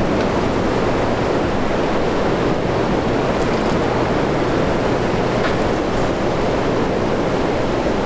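Steady rush of fast-flowing river water from the Niagara River current.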